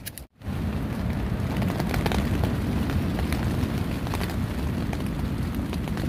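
Rain pattering on nylon shelter fabric close overhead: a dense, steady patter with scattered sharper drop ticks. It starts suddenly about half a second in.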